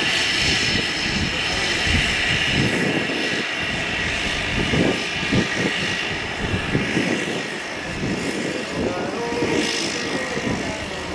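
Cessna 208 Caravan's single turboprop engine running at taxi power, a steady high whine with the propeller's churn as the plane taxis past.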